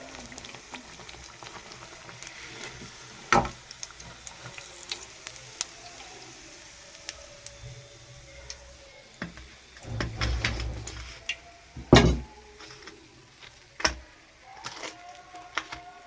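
Bread pakoras frying in hot oil with a light sizzle. Several sharp clanks of a metal utensil against the pan break in, the loudest about twelve seconds in, with a rougher scraping stretch just before it.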